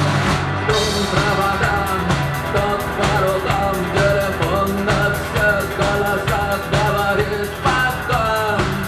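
Live rock band playing an instrumental passage: a steady drum-kit beat and bass under a lead melody line that glides up and down.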